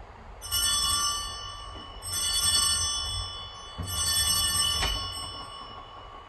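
Altar bells rung three times, about one and a half seconds apart, each ring a bright, many-toned chime that dies away over a second or two. They mark the elevation of the host at the consecration.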